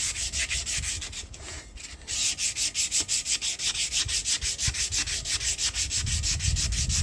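Folded 180-grit sandpaper rubbed by hand back and forth on the bare metal lip of an alloy wheel, a quick rhythmic scratching of about five strokes a second. It eases off for a moment about a second in, then goes on steadily. This is the 180-grit pass over the spots where corrosion was sanded out with 100 grit.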